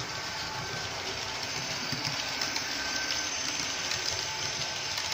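Model electric locomotive pulling a train of passenger coaches past on the layout track: a steady running noise of the motor and metal wheels on the rails.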